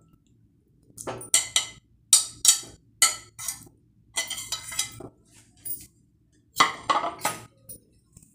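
A knife scraping and clinking against a ceramic plate as raw chicken cubes are pushed off it into a ceramic bowl: a run of short, sharp clinks and scrapes, with a louder cluster of clinks near the end.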